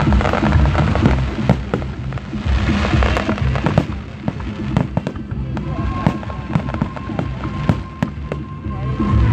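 Fireworks going off in many sharp bangs and crackles, with music playing underneath.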